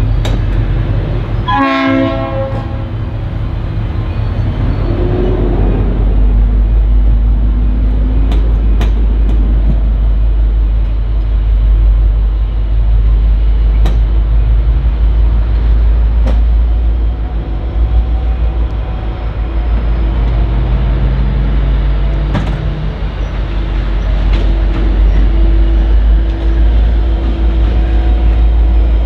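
V/Line N class diesel locomotive running light at low speed, its EMD two-stroke diesel engine giving a steady low drone. About two seconds in comes a short multi-note horn blast, and later there are a few sharp clicks from wheels crossing points.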